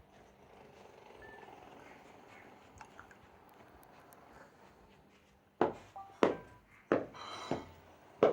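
Samsung Galaxy Grand Prime notification tones playing from the phone. Faint at first, then a run of short, sharp notes, about one every two-thirds of a second, through the last three seconds.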